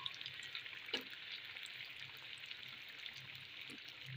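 Doughnuts deep-frying in hot oil: a steady sizzle with small crackles, and one sharp click about a second in.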